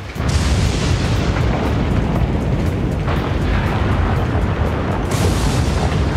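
Volcanic eruption sound effect: a deep, continuous rumble with three louder blasts, one just after the start, one about three seconds in and one about five seconds in.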